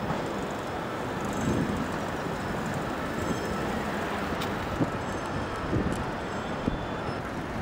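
Distant city traffic, a steady hum heard from high above the streets.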